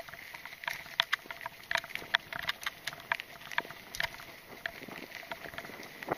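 Mountain bike rattling over a bumpy dirt trail: irregular sharp knocks and clicks several times a second from the frame, chain and camera mount jolting over the ground.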